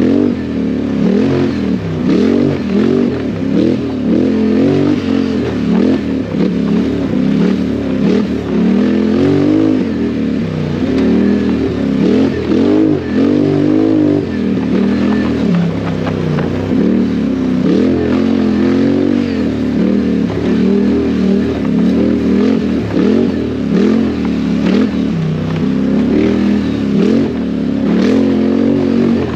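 ATV engine running hard, its pitch rising and falling over and over as the throttle is opened and shut.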